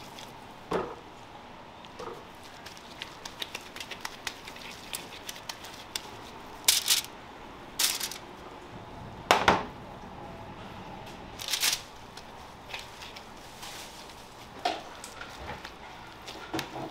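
Hand-work sounds from shaping minced pork into balls and setting them on a foil-lined tray: scattered small clicks and pats, with a handful of louder short crackles, the loudest about nine and a half seconds in.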